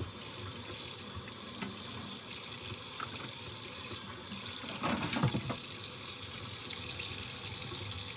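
Kitchen tap running steadily into a sink while dishes are washed, with a brief clatter about five seconds in.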